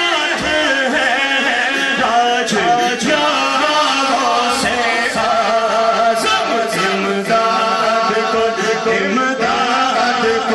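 Men's voices chanting a devotional refrain, continuous and loud, amplified over a sound system.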